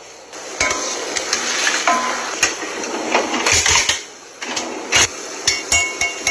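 Kitchen handling clatter: a run of sharp clicks and knocks as glass jars and metal utensils are handled and set down, with a couple of short metallic clinks near the end.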